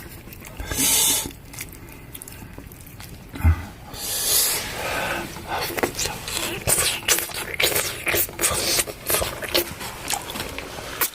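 Eating straight from a cooking pot: chopsticks clicking and scraping against the pot, with a couple of short breathy puffs and chewing.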